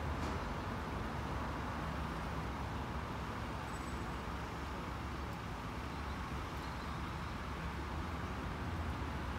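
Steady low rumble of road traffic and running car engines.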